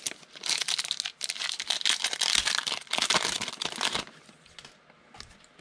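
A foil trading-card pack wrapper being torn and pulled open, crinkling for about three and a half seconds, then dropping to a few faint rustles.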